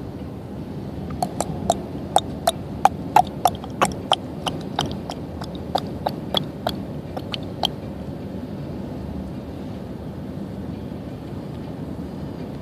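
A quick, irregular patter of about twenty sharp ticks, like small hard bits striking the car's glass and body, over the steady road noise of a car at highway speed. The patter lasts about six seconds, then only the road noise remains.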